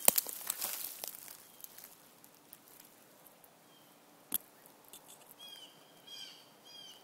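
Leaves and twigs rustling and crackling close by through the first second or so, then a single sharp click about four seconds in. A few short bird chirps come near the end.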